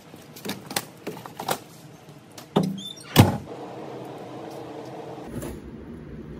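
Knocks and clunks as a Harbor Freight garden cart loaded with firewood is pulled in over a doorway threshold, ending in a loud thump about three seconds in. A steady low rumble follows near the end.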